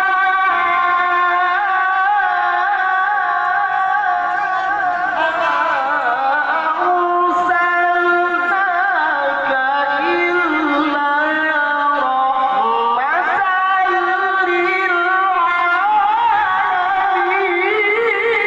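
A male qari reciting the Quran in melodic tilawah style, holding long, high, ornamented notes with vibrato and sliding between pitches, with a rising swoop near the two-thirds mark; the reciter has a cough and cold.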